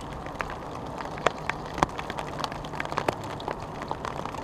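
Heavy rain hammering down on a fishing umbrella canopy: a steady hiss with many sharp, irregular drop hits close by.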